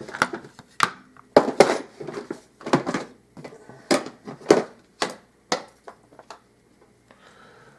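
Sharp metal clicks and clinks, about a dozen at irregular intervals, from an Abus Titalium euro lock cylinder and tools being handled as the picked lock is taken apart.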